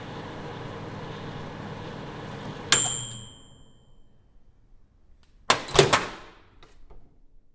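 Microwave oven running with a steady hum that stops about three seconds in as its bell dings once to mark the end of cooking. A couple of seconds later comes a quick cluster of sharp clacks as the door is unlatched and opened, then a few small clicks.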